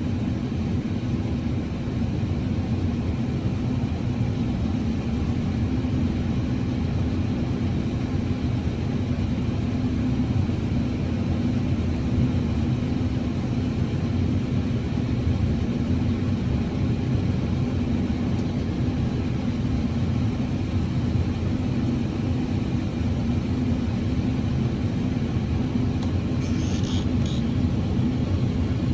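Combine harvester running steadily while harvesting corn: an even, low drone.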